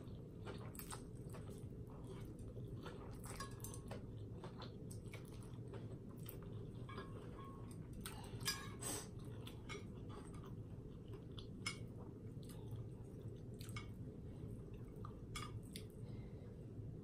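Close-up eating sounds of spicy Korean instant noodles: chewing and slurping, with small clicks of chopsticks and a metal spoon on the plate and one sharper click about eight and a half seconds in.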